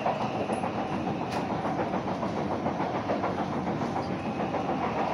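Steady running noise inside a Kawasaki C151 MRT train car fitted with a Toshiba permanent-magnet synchronous motor (PMSM) traction system: wheels rolling on the rails with a continuous rattle as the train travels between stations.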